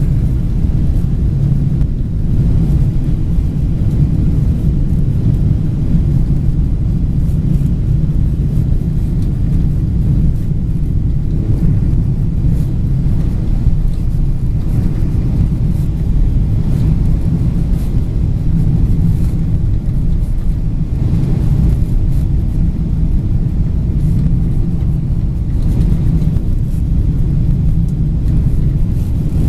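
Steady low drone inside an airliner cabin, the noise of the engines and airflow heard from a passenger seat.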